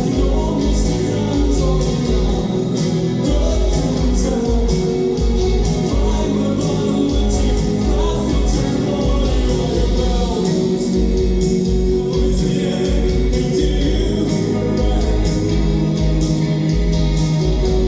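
A live band playing a song with singing over a steady drum beat.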